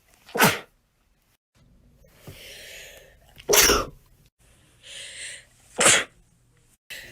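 A person sneezing three times in a row, each loud sneeze preceded by a quieter drawn-in breath.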